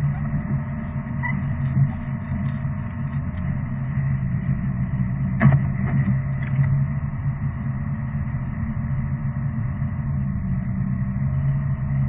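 A road vehicle driving: a steady low engine and road hum, with a single knock about five and a half seconds in.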